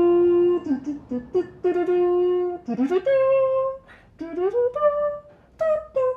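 A person singing a short wordless tune: held notes linked by slides in pitch, in several phrases.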